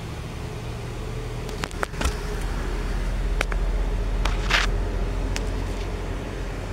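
A car engine idling with a steady low rumble that grows louder about two seconds in, with a few sharp clicks and knocks over it.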